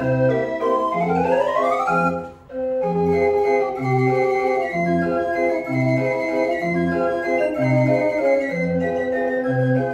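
The Dutch street organ De Koppelpaarden playing a tune, with sustained pipe notes over an alternating bass line. A rising run comes about a second in, followed by a brief break around two and a half seconds before the music carries on.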